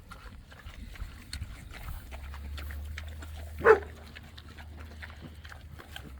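A dog gives one short, loud bark a little past the middle, over faint scattered clicks.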